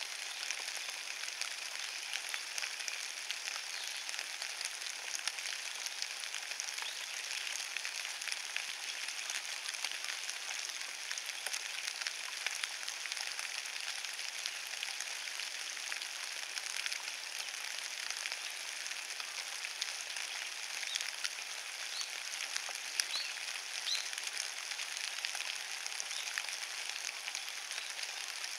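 Steady rain falling on wet fallen leaves: an even pattering hiss made of many small drop ticks.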